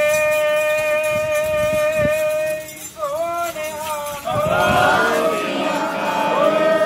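A long, steady held note lasting nearly three seconds, then a wavering, sliding stretch with several pitches overlapping, then another steady held note near the end.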